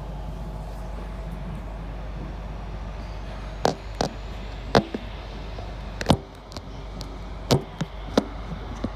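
Electric passenger train running, heard from inside the carriage as a steady low rumble. In the second half comes a run of irregular sharp clicks and knocks, a dozen or so, some in quick pairs.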